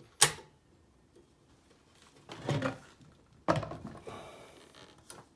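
Metal parts of an Oliver No. 6 typewriter knocking and clanking as the center section is jiggled into the frame: a sharp click at the start, a scrape a couple of seconds later, then a harder knock that rings on briefly. The section is not dropping into place.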